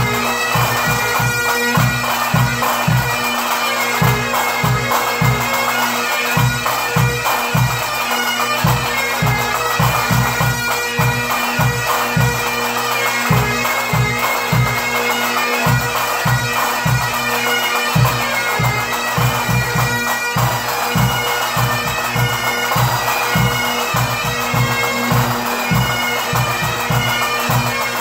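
Pipe band playing: a group of Great Highland bagpipes sounding a melody over their steady drones, with a bass drum beating a regular rhythm underneath.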